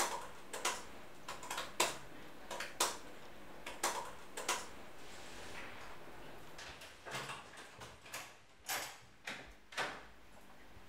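Laptop keyboard being typed on: irregular key clicks in short runs with pauses between them.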